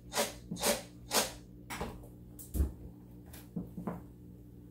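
Popcorn kernels and Skittles swishing and rattling inside a lidded cooking pot as it is shaken back and forth, about two shakes a second, to keep them from burning before they pop. About two and a half seconds in, a knock as the pot is set back down on the gas burner grate, then two light clicks.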